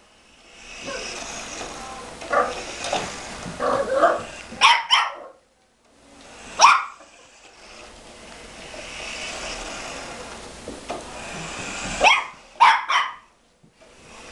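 Small cavapoo dog barking sharply in short bursts at a remote-control toy truck: a pair of barks about five seconds in, one more about two seconds later, and three near the end, with softer yaps before the first pair. Between the barks runs the steady whir of the toy truck's electric motor.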